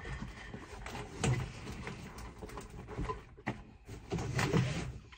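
Handling noise close to the microphone: a bag and things in a cubby being shuffled and pushed into place, rustling with a few knocks and thuds, the sharpest knock about a second in.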